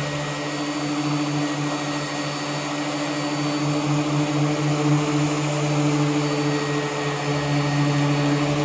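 Power sander running steadily against a car's body panel: a constant motor hum over an even sanding hiss.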